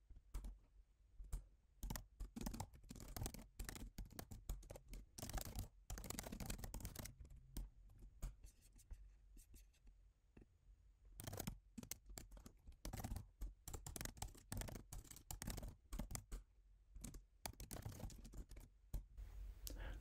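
Faint typing on a computer keyboard: irregular runs of key clicks, with a pause of a few seconds around the middle.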